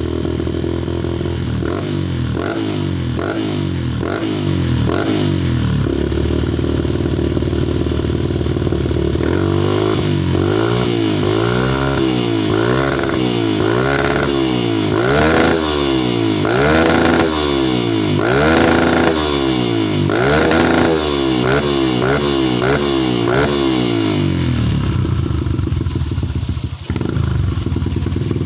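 Motorcycle with a Prospeed RX Series aftermarket exhaust being revved for a sound check. It starts with a string of short throttle blips and idles for a few seconds. It is then revved up and down over and over, about once a second, and settles back to idle near the end.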